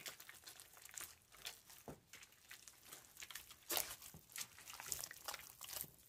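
Hands kneading soft, wet scalded cassava-starch dough in a metal bowl: faint, irregular squishes and small knocks against the bowl.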